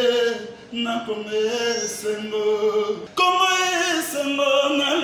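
A man singing an unaccompanied chant in long held notes, in three phrases with short breaks about a second in and about three seconds in.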